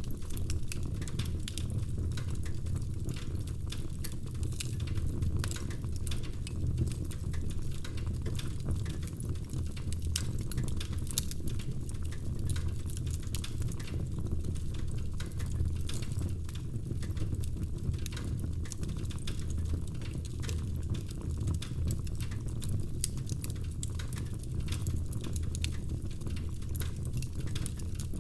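Wood fire burning in a fireplace, crackling with many small irregular pops and snaps over a steady low rumble of the flames.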